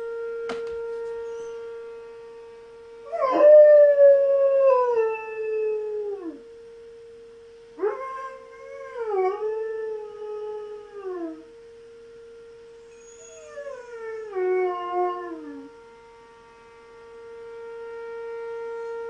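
A German Shepherd howls three times, each howl starting high and sliding down in pitch. Beneath it, an outdoor warning siren sounds its monthly test: one steady tone that slowly swells and fades.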